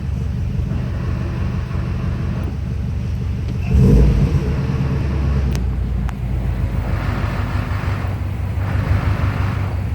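2002 Subaru WRX flat-four engine idling steadily, with a rough rattle coming in and out a few times in the second half, the clutch rattle that appears when the pedal is pressed. Shops blamed a bad throwout bearing, but adjusting the clutch pedal turned out to cure it.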